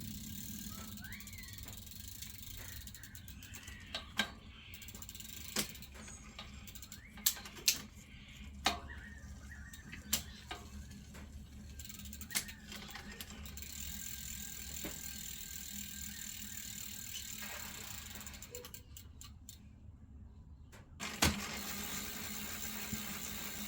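Irregular sharp clicks and knocks of hands-on work on a bicycle, over a steady low hum.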